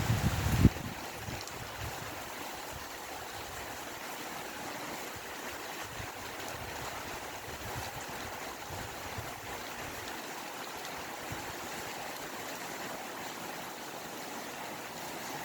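Steady rain and wind, an even hiss, with a few loud low thumps in the first second.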